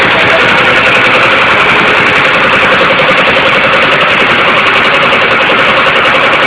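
Diesel engine running loudly and steadily, with no change in speed.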